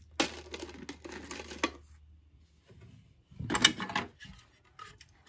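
Plastic toys clattering as they are handled: a plastic link necklace rattling in the hands for the first second and a half, then a louder clatter about three and a half seconds in as hands rummage among the hard plastic toys in a toy bin.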